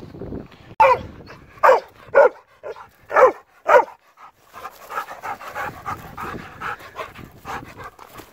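A dog barking about five times in short, sharp barks, then quieter panting.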